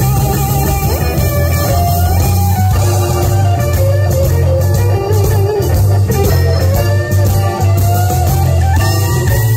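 Live blues band playing: a lead electric guitar with bent notes over bass and drums.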